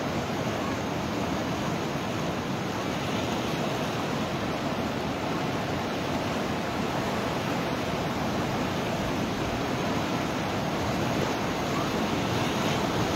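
Muddy river in full flood rushing steadily past, a constant even noise of turbulent water. The onlooker takes the spate for the result of a cloudburst upstream.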